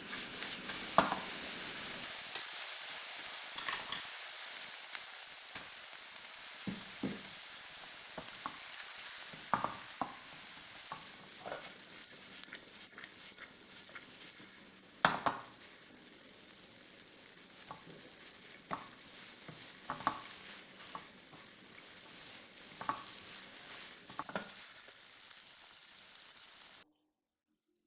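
Noodles sizzling as they are stir-fried in a pan, with a cooking utensil knocking and scraping against the pan every few seconds. The sizzle slowly dies down and cuts off suddenly near the end.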